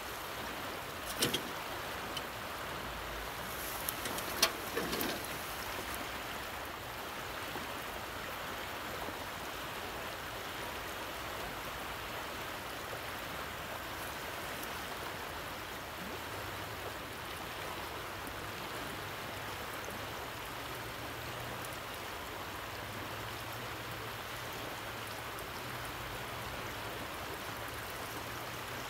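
Steady rush of fast-flowing river current, with a few sharp clicks in the first five seconds.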